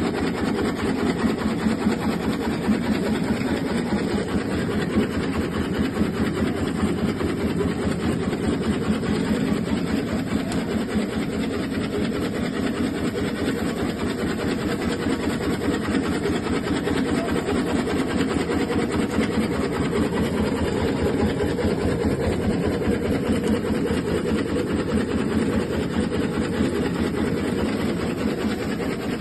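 Tobacco-leaf stitching machine running, with a rapid, steady mechanical clatter as it sews tobacco leaves onto string.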